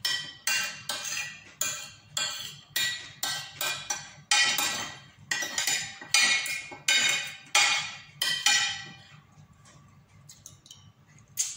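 Metal spoon and fork clinking and scraping against a ceramic plate, about two sharp clinks a second, as the last of the food on the plate is gathered up. The clinks thin out about nine seconds in, with one more near the end.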